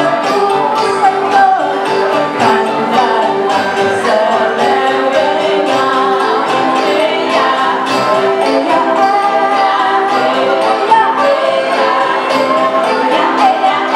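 Live band playing: women singing over acoustic guitar, keyboard and a woodwind, with a steady tambourine jingle keeping the beat.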